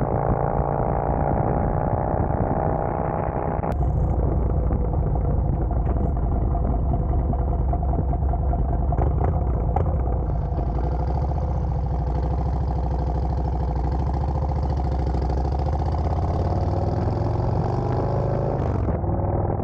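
Harley-Davidson touring motorcycle's V-twin engine running steadily while riding, with road noise. The sound changes abruptly about 4 and 10 seconds in. Over the later part the engine note climbs gradually as the bike speeds up.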